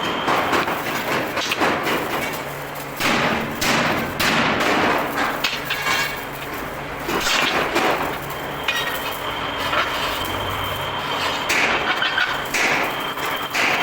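Metalworking noise on steel parts: irregular bursts of scraping and clanging, each lasting about a second, over a faint steady high whine.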